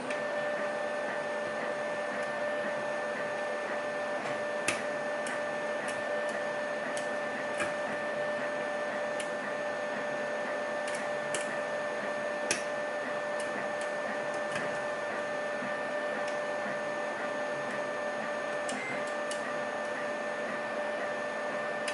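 A steady machine hum with a constant tone runs throughout, under scattered faint clicks from a lock pick and tension wrench working the spool pins inside a lock.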